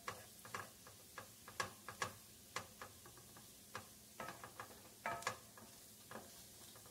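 Spoon knocking and scraping against the pot while stirring flour into butter-softened vegetables to cook a roux: irregular light clicks, about two a second.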